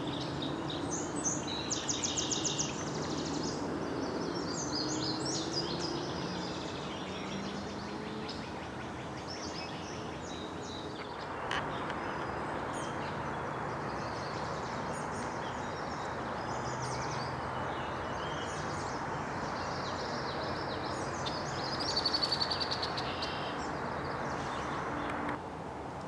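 Outdoor birdsong: several birds chirping and singing in short, scattered phrases over a steady background hiss, with a louder, rapidly repeated buzzy call near the end.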